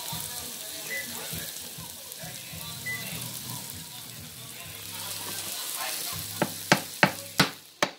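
Beef burger patties sizzling steadily as they fry in their grease on a foil-lined pan, with a few sharp knocks near the end.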